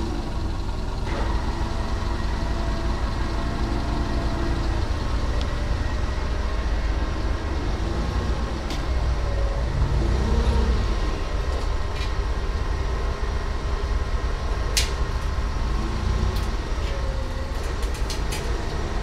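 Engine of the machine carrying the lifting forks running steadily under the lift, a deep even rumble, with a faint wavering whine and a few sharp metal clicks in the second half.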